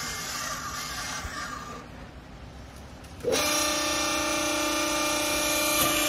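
A rustling hiss for the first couple of seconds. About three seconds in, the vertical hydraulic baler's pump motor starts suddenly and runs with a steady hum.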